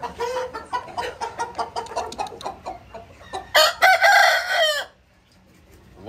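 Aseel game chickens clucking in a coop. About three and a half seconds in, a rooster crows once, a short crow of just over a second.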